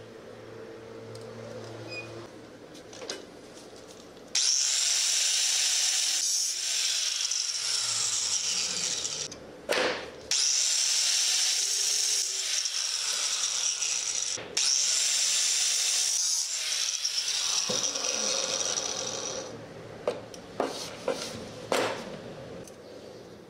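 Angle grinder cutting through a steel threaded rod held in a vise, starting about four seconds in and running for about fifteen seconds with two brief breaks. A few sharp metal clicks follow near the end as the cut pieces are handled.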